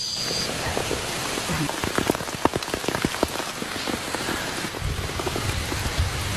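Rain falling and pattering on a surface, with many sharp individual drop hits. A low rumble joins about three-quarters of the way through.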